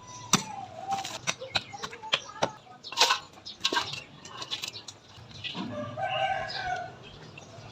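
Chickens calling, with one longer drawn-out call about six seconds in, among scattered sharp clicks and knocks.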